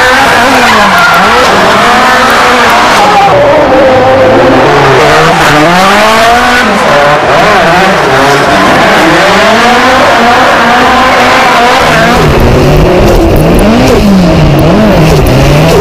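Drift car engine revving up and down hard, over the hiss and squeal of tyres sliding sideways. About twelve seconds in it changes to another car heard close up, its revs swinging up and down more quickly over a heavier low rumble.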